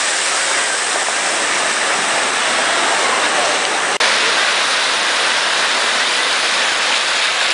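Steady rush of small breaking waves and whitewash close to the microphone, with a brief gap about four seconds in.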